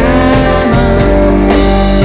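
A live band playing a rock song, led by strummed acoustic and electric guitars.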